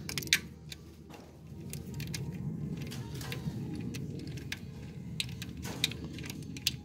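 Hand ratchet with a 10 mm socket clicking in short, irregular runs as the ignition coil pack's mounting screws are loosened, over a low steady hum that comes in about two seconds in.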